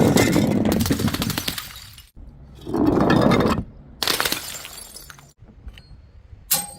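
Glass bottles smashing, one after another: four separate loud shattering crashes, each stopping abruptly.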